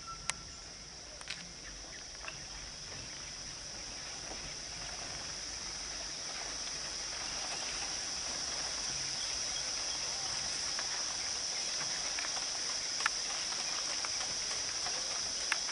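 Insects droning steadily at a high pitch, growing gradually louder, with a few sharp clicks here and there.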